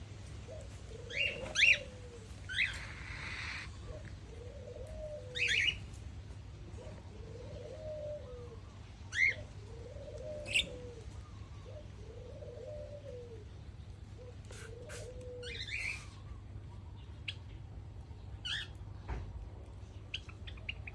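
Birds calling: a low cooing call repeats about every one and a half to two seconds and stops about fifteen seconds in. Short, sharp high chirps break in now and then over it, the loudest about one and a half and nine seconds in.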